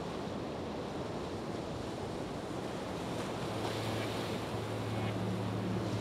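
Ocean waves washing as a steady hiss at the start of a relaxation music track. A low held drone note comes in about halfway through.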